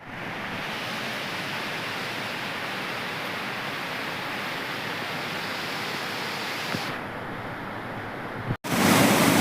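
Waterfall: steady rushing of falling water. The sound thins about seven seconds in, then cuts off abruptly, followed by a louder, closer rush.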